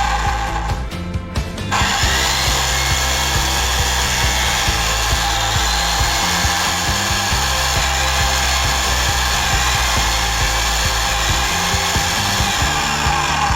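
Makita HM0830 electric demolition hammer running on test after repair, cutting out briefly about a second in and then starting again, over background music.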